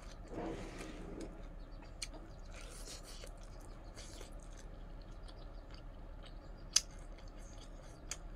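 Close-up mouth sounds of chewing and crunching raw cabbage leaf and rice, with scattered small clicks and crackles of fingers mixing food on a metal plate. A single sharp click about seven seconds in is the loudest sound.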